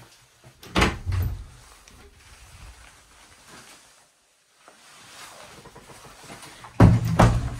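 A wooden interior door being handled: a pair of loud knocks and thuds about a second in, and another pair near the end, with faint rustling between.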